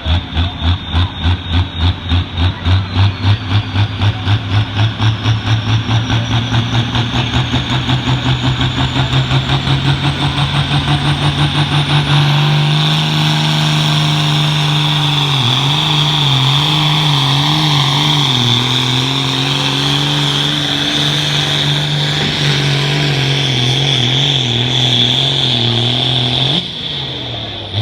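John Deere hot farm class pulling tractor's diesel engine at full power down the track. For about the first twelve seconds the sound pulses in quickening beats while the pitch climbs. It then holds high and wavering until it drops off sharply about a second before the end as the pull finishes.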